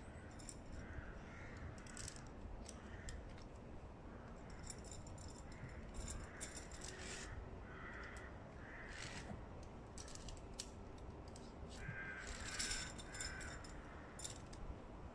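A knife blade scraping and shaving a wooden stick in short, irregular strokes, busiest about twelve seconds in.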